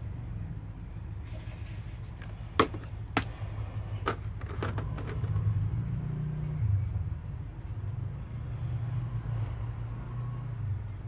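A few sharp plastic clicks as a broken plastic spinning top and a hot glue gun are handled, the loudest about two and a half seconds in, over a low, wavering engine-like rumble.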